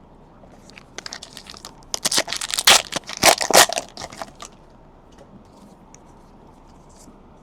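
Wrapper of a trading-card pack being torn open and crinkled: a burst of rapid crackling that lasts about three seconds, loudest in the middle.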